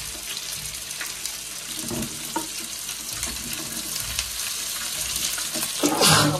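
Fish frying in oil in a small aluminium pan, with a steady sizzle and small clicks and scrapes of a metal spoon turning the pieces. A brief louder burst comes near the end.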